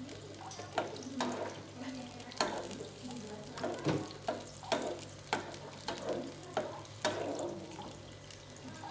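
Metal spoon stirring shallots and garlic in water in a small frying pan, clicking and scraping against the pan about a dozen times at an irregular pace while the liquid swirls.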